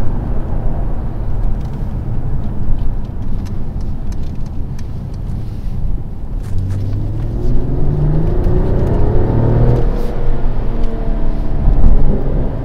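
Mercedes-Benz E450's 3.0-litre turbocharged straight-six petrol engine in Sport Plus mode, heard from inside the cabin over low road rumble. From about six seconds in it accelerates, its note rising steadily for a few seconds, dipping near ten seconds, then rising again.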